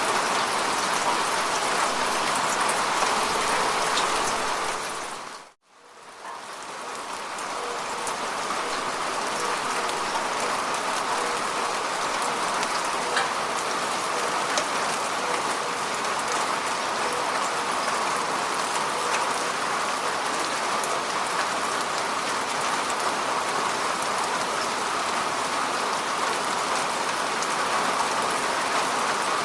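Steady rain falling on lake water: a dense hiss with scattered small drop ticks. About five seconds in, it fades out to near silence for a moment, then swells back in.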